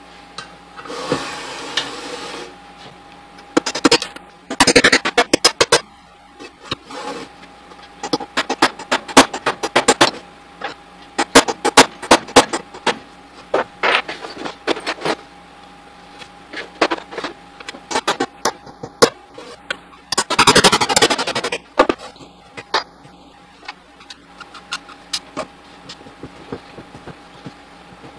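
Hammer and hand tools striking the metal body of a vintage KitchenAid 3B mixer in quick runs of sharp metallic taps as the motor head is worked off its stand, with two longer scraping stretches, one near the start and one about three quarters of the way through.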